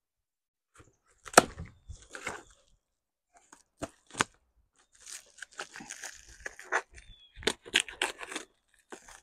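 Tight plastic wrapping being torn and pulled off a package, crinkling and crackling. A sharp snap about a second and a half in is the loudest sound, and a busier stretch of tearing follows in the second half.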